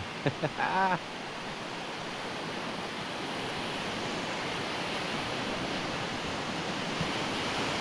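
Surf washing onto a shallow sandy beach: a steady rush of water that swells slowly, with a man's voice briefly in the first second.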